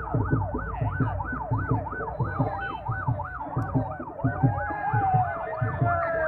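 Convoy escort vehicle's siren in a fast yelp, rising and falling two or three times a second, over a regular low thumping beat. A second, slower wavering siren tone joins about four seconds in.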